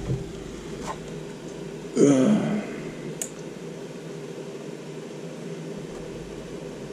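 Steady low electrical hum, with two faint ticks, while the voltage knob of a bench DC power supply is turned up. About two seconds in, a short murmur from a voice lasts about half a second.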